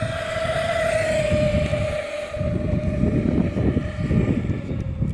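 Redcat Vigilante RC monster truck's electric motor and drivetrain whining at full throttle on a speed run, the pitch sagging slightly and fading about two and a half seconds in. Heavy wind buffets the microphone, loudest in the second half.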